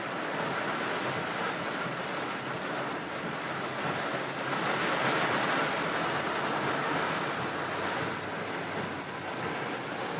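Heavy rain pouring down in a flash flood, a steady rushing hiss that swells a little in the middle.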